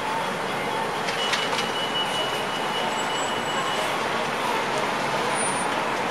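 City transit bus driving slowly past close by as it turns, over steady street-traffic noise. A thin high-pitched whine starts about a second in and lasts nearly three seconds.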